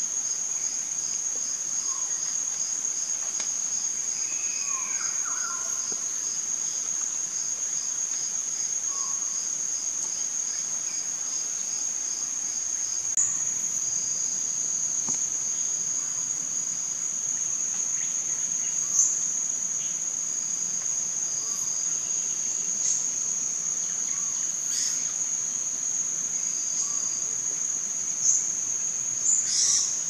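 A steady, high-pitched insect drone, with a second insect pulsing about twice a second that stops about halfway through. A few short, sharp high chirps stand out at intervals in the second half.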